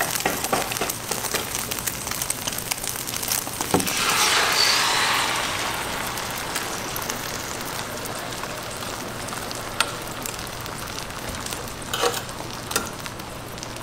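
Egg batter clicking and scraping as it is stirred in a stainless steel tray, then poured onto a hot griddle: about four seconds in it hits the hot surface with a loud sizzle that slowly settles into a steady frying hiss. A few sharp knocks near the end.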